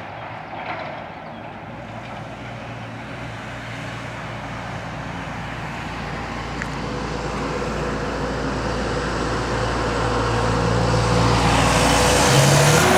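A road vehicle approaching, its engine and tyre noise growing steadily louder until it is close near the end.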